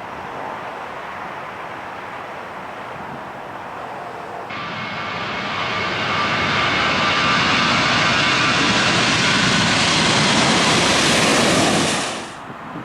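Boeing 737-800 jet engines running loud and steady with a high whine. The noise comes in abruptly a few seconds in, builds over a couple of seconds, and cuts off suddenly near the end.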